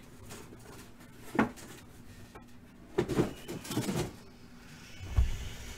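A few soft knocks and scrapes of shrink-wrapped cardboard trading-card boxes being handled, about a second and a half in, around three to four seconds in, and again near the end.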